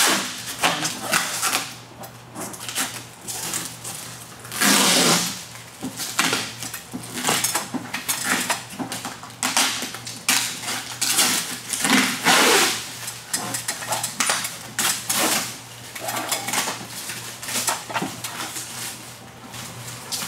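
Protective plastic film being peeled off the top of a rolling shutter's hood: irregular crackling and rustling with sharp clicks, and a few longer tearing stretches, the clearest about five seconds in.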